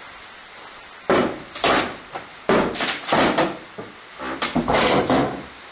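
Wooden board being pried and pulled back off an old barn wall, creaking and scraping in three pulls about a second long each.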